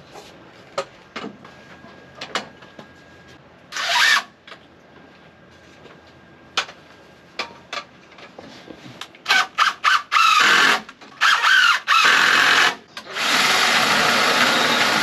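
Yellow cordless power tool run in a string of short bursts that climb in pitch as it spins up, then held on in one long continuous run near the end, working into the pine framing. A few light knocks of wood come before it.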